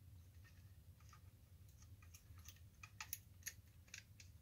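Faint, scattered clicks and ticks of a small metal clamp being tightened down by hand, with a few sharper clicks about three seconds in.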